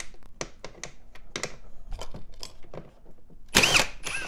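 Ryobi 18V ONE+ cordless drill with a socket backing out 10 mm bolts: a run of irregular sharp clicks and rattles, then a short loud burst of the drill spinning about three and a half seconds in.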